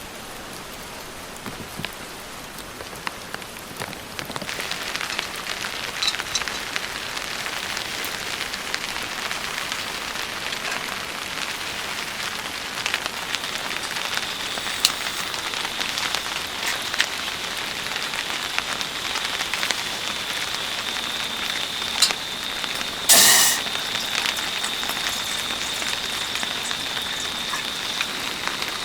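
Rain falling steadily, with many single drops ticking sharply on a surface; it grows heavier about four seconds in. A short, loud burst of noise comes near the end, and a faint steady high tone runs through the second half.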